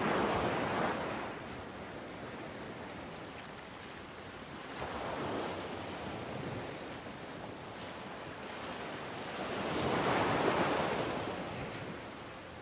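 Ocean surf: waves breaking and washing in over a steady rush of water, with a louder wave at the start, a smaller one about five seconds in, and the biggest about ten seconds in.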